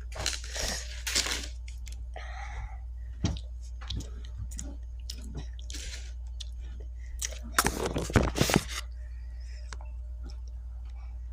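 Close-up chewing and crunching of food, made up of irregular crackly bites. The loudest run of crunches comes about eight seconds in.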